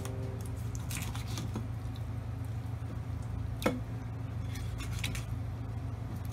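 A knife cutting and scraping through skinned fugu (pufferfish) on a wooden cutting board, heard as scattered soft clicks and taps, the sharpest about three and a half seconds in, over a steady low hum. Background music fades out in the first half second.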